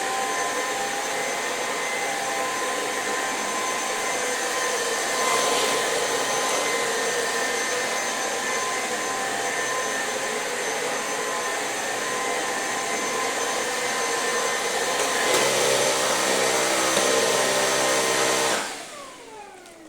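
Electrolux Pure F9 cordless stick vacuum running with a steady motor whine. About fifteen seconds in the sound gets louder and changes, and near the end it is switched off, the motor winding down with a falling whine.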